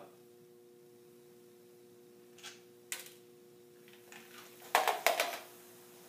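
A sharp click, then a quick clatter of several loud clicks and knocks about five seconds in, from hands working the plastic top of a PVC-pipe Mentos dispenser on a soda bottle.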